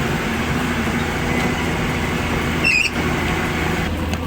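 Heavy diesel machinery engines running steadily after a mired truck has been pulled free of the mud. A brief high chirp sounds about two and a half seconds in.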